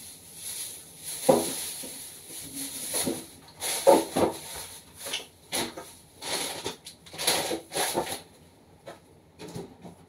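Kitchen clatter of food containers and jars being handled and set down: a string of sharp knocks and clacks with rustling between, thinning out near the end.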